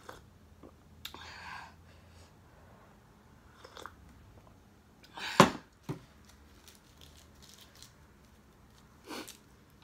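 Quiet sips of hot tea from a ceramic mug, heard as a few short soft noises. A sharp knock about five and a half seconds in is the loudest sound, followed by a smaller knock just after.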